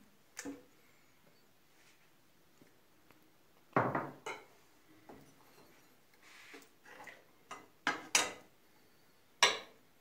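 Metal ladle knocking and clinking against a large aluminium pot and a bowl while thick rice pudding is ladled out. There are scattered sharp clinks, the loudest about four seconds in and again near the end.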